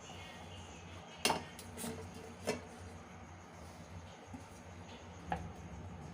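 A few light clinks and knocks of kitchen utensils against dishes, four in all with the first the loudest, over a low steady hum.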